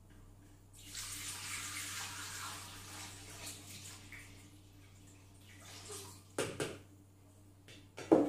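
Water poured from a plastic jug into the stainless-steel mixing bowl of a Monsieur Cuisine Connect food processor, a splashing pour that lasts a few seconds and tails off. It is followed by a few sharp knocks of the bowl being handled, the loudest just before the end.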